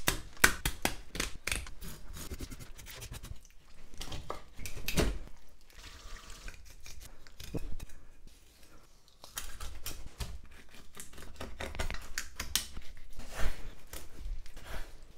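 Kitchen scissors snipping through a sea bream's fins in a run of sharp snips, then knife cutting and handling sounds as the fish is filleted on a wooden cutting board.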